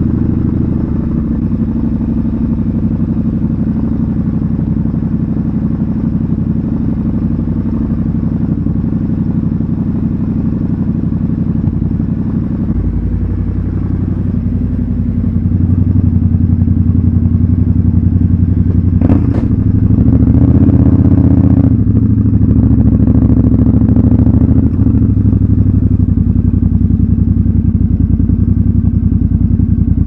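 Triumph Scrambler 1200 XC's 1200 cc parallel-twin engine idling steadily just after a start, then pulling away at low revs, a little louder from about halfway, with one sharp clack about two-thirds of the way in. It is heard in an enclosed concrete garage.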